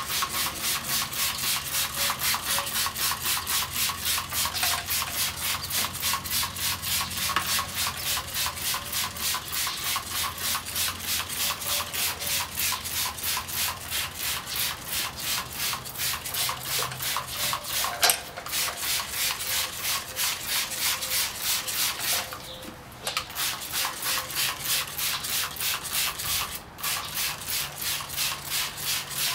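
Trigger spray bottle squirting all-purpose cleaner onto and behind a car wheel rim: rapid, even squirts, about three a second, with a few short breaks near the end.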